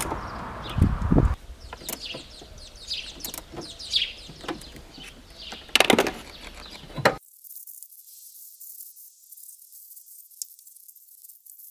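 Birds chirping outdoors in a run of short, falling chirps, with a dull knock about a second in and sharp clicks of tools and hands on the engine's fuel filter housing around six and seven seconds. After about seven seconds only a faint high hiss remains.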